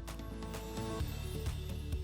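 Background music with steady held notes and a light beat.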